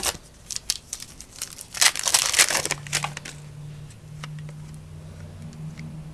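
Foil wrapper of a basketball card pack being torn open and crinkled, with clicks of cards being handled; the crinkling is densest about two to three seconds in. A low steady hum runs underneath from about three seconds on.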